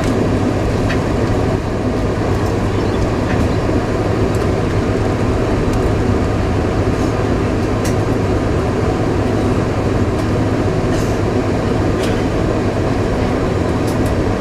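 Cabin noise inside a Boeing 747-400 taxiing: the steady low rumble of its four Rolls-Royce RB211 engines at taxi power, with a few faint clicks.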